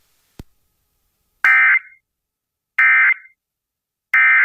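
Three short buzzing data bursts of the Emergency Alert System's digital code (the SAME end-of-message signal), each about a third of a second long and about 1.3 seconds apart, sent over NOAA Weather Radio to close the test message. A faint click comes just before the first burst.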